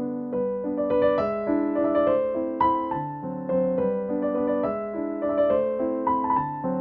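Background piano music: a gentle melody of sustained notes over chords, with a new note every half second or so.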